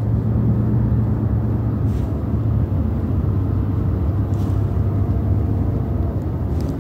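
A steady, low engine rumble with a constant hum, like a motor idling.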